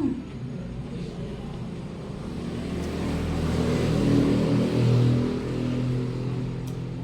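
A motor vehicle passing by, its noise swelling over a few seconds, peaking past the middle and then fading.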